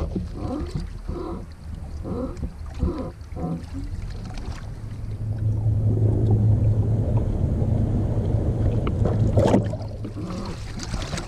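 Bass boat on the water while an angler fights a fish on a bent rod. Short bursts of sound come first, then a steady low hum from about halfway through, and one short sharp burst near the end.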